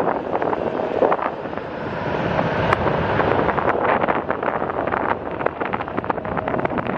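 Wind buffeting the microphone: a steady rushing noise with many short crackles.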